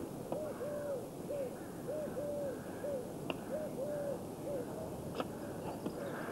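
A dove cooing over and over in a short-long-short phrase, repeated about every second and a half.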